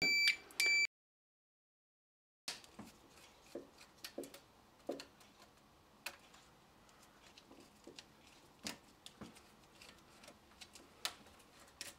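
Two quick high-pitched beeps from a voltage tester at the very start. After a short gap come light clicks, taps and small scrapes of a screwdriver loosening terminal screws and disconnecting the wires of an old wall light.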